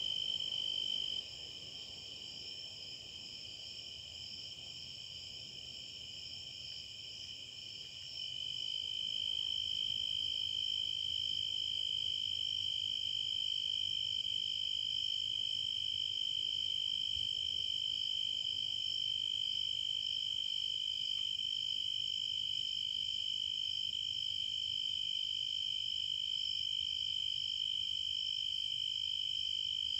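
Crickets trilling steadily in two pitches, a lower one and a higher one. The lower trill stops about a second in and comes back around eight seconds in.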